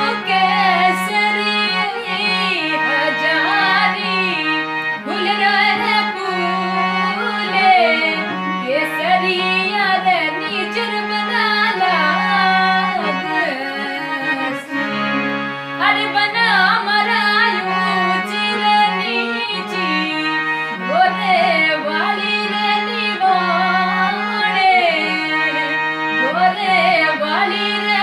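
Rajasthani desi folk song: a solo voice sings a melody with bending, ornamented notes over steady held chords from an accompanying instrument.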